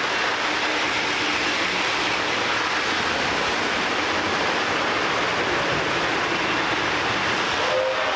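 Lionel O-gauge model trains running round the layout: a steady rumble of wheels and motors on the three-rail track. Near the end a locomotive's whistle starts to blow.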